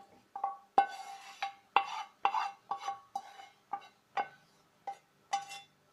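Wooden spoon knocking and scraping against a metal frying pan while gravy is scraped out of it. There are about fifteen irregular knocks, each with a short metallic ring.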